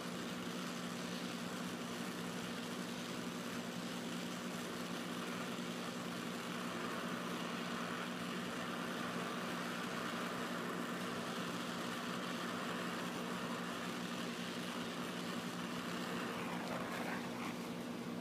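Oxy-fuel torch flame hissing steadily while brazing a small hole in a refrigerator compressor's tubing, with a steady low hum underneath.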